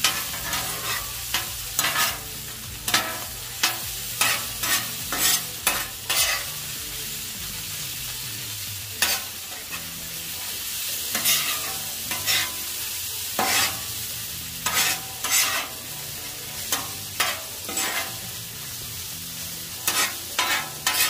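Bacon, sausage and chorizo sizzling on a Char-Griller Flat Iron griddle while two metal spatulas scrape and clack across the griddle top, mixing the meat. There is a steady frying hiss under irregular sharp scrapes and taps that come in clusters.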